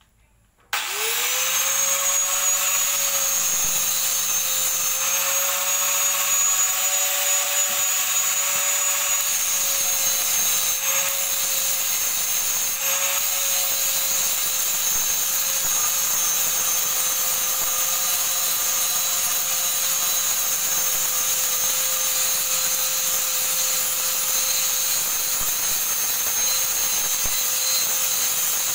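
Electric angle grinder switched on about a second in, its whine rising as the disc spins up, then running steadily while it grinds rust off steel flat bars clamped in a bench vise.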